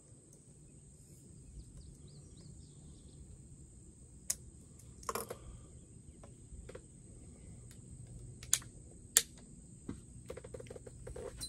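Scattered light clicks and knocks from a muzzleloading rifle being handled on a wooden bench during cleaning and reloading between shots, with a quick run of small clicks near the end. A faint steady high whine sits behind it.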